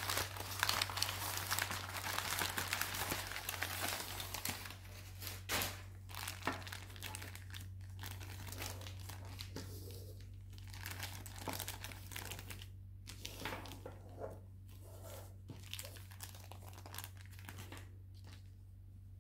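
Plastic zip-lock bags and packing paper crinkling as they are handled and unwrapped. The crinkling is dense for the first few seconds, then comes as separate rustles that thin out toward the end.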